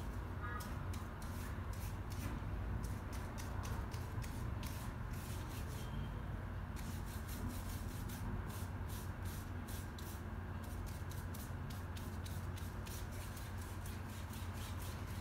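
Paintbrush rubbing paint onto canvas paper in quick, repeated horizontal strokes, a dry swishing scrape, over a steady low background hum.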